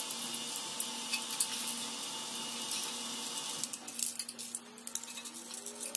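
Faint scattered clicks and scrapes of a screwdriver working the terminal screws and wires of an electrical wall outlet as the wires are taken off, with a bunch of clicks near the start and another around two-thirds through.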